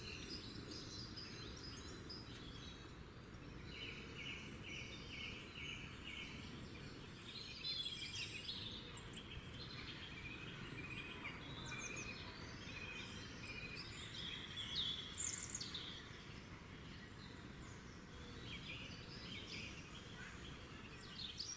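Steady low outdoor background rumble with many high chirps and short calls scattered throughout, including a quick run of about six pulsed notes around four to five seconds in.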